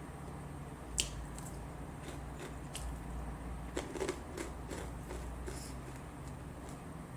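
Mouth-close chewing of crispy fried tilapia: scattered crisp crunches and clicks, with a cluster about four seconds in. A low steady hum lies under it.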